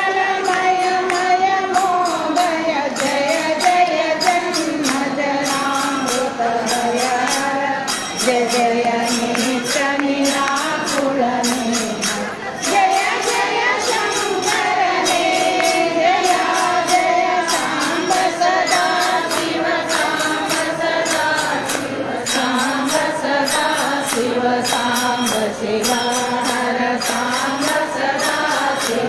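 A group of voices singing a devotional song in long, gliding phrases over a steady jingling percussion beat.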